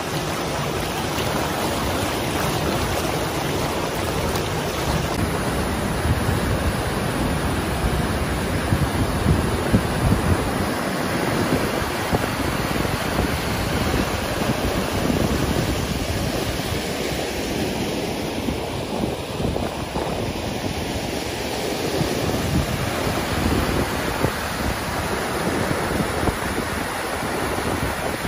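Mountain river rushing over granite boulders and down rocky chutes as white-water rapids: a steady noise of running water throughout.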